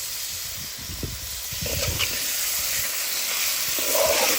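Seasoned duck pieces sizzling as they fry in curry in a covered pot on high heat. The sizzle is steady and grows a little louder about a second and a half in.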